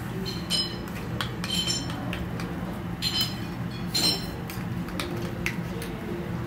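Metal spoons clinking and scraping against a small copper saucepan as rice is stirred, with about four brighter ringing clinks. A steady low hum runs underneath.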